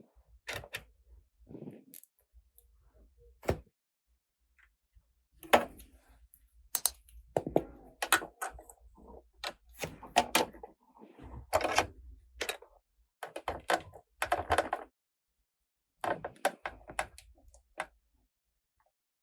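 Small hard plastic toy pieces from a Minnie Mouse makeup playset clicking, tapping and knocking together as they are handled, in irregular clusters with short pauses.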